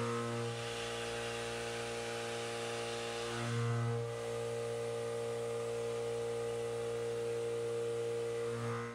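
CNC machining centre semi-finishing the walls of a steel pocket with a 3/4-inch indexable backdraft end mill, spindle at 3500 RPM: a steady machine hum with several held tones that swells briefly about three and a half seconds in.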